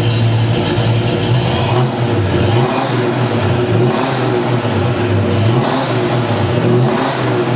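A 1972 Ford Mustang Mach 1's 351 Cleveland V8 running loud, revved up and down several times, its pitch repeatedly rising and falling.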